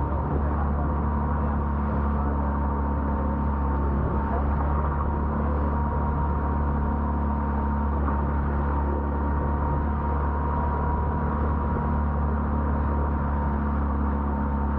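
Boat engine running steadily under way: a constant low drone with a thin, steady whine above it.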